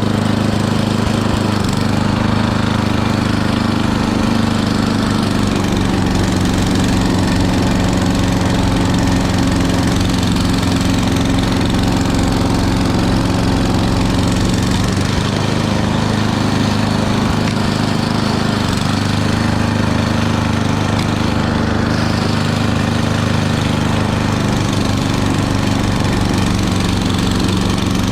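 Small gasoline engine of a snowblower running steadily at high speed, its pitch sagging briefly about halfway through as it takes on load, then recovering.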